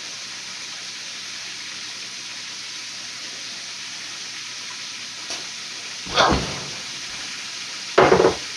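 Chicken livers frying in hot grease in a skillet, a steady sizzle, with two short, louder handling noises about six and eight seconds in.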